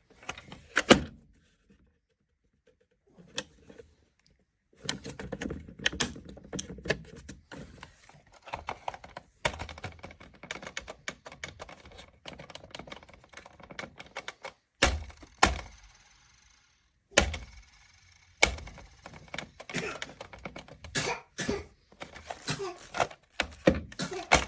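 Handling noise from a small ceramic space heater being touched and moved: a dense run of clicks, taps and knocks, with a few louder thumps and several short gaps of silence.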